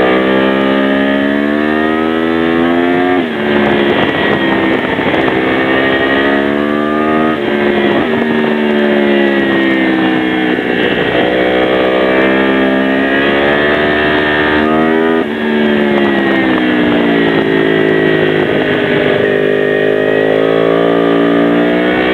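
2009 Yamaha R1 crossplane inline-four through an Akrapovic carbon exhaust, running loud under load. Its pitch climbs steadily, then drops abruptly three times, about 3, 7 and 15 seconds in, each time climbing again afterwards.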